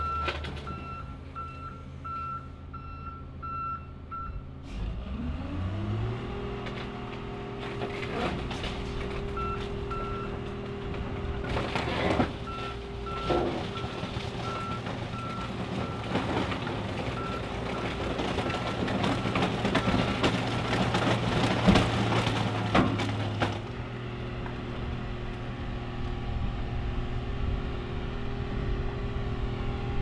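Case 621F wheel loader's diesel engine revving up about five seconds in and running hard, then easing off near the end. Its reverse alarm beeps in steady pulses at the start and again through the middle as it backs away, with occasional metal clanks.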